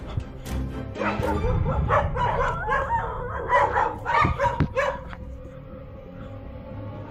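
A dog barking and yelping in a quick run of short, pitch-bending calls from about a second in until about five seconds in, over steady background music.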